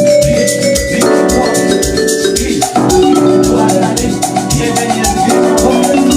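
Amapiano beat playing: a steady kick drum under fast, busy ticking percussion, with held keyboard and melodic notes over it.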